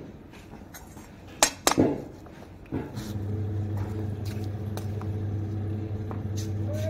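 A few sharp metallic clinks about one and a half seconds in. About three seconds in, a steady electric motor hum starts up again, typical of a washing machine starting the next stretch of its wash cycle.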